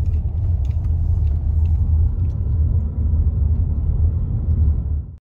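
Steady low rumble of a car driving, heard from inside the cabin: road and engine noise. It cuts off suddenly near the end.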